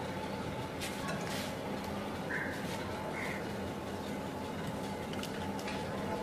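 Raw potato slices being handled and laid into a glass baking dish, with a few soft taps against the glass over a steady background hum. Two short bird-like calls sound about two and a half and three seconds in.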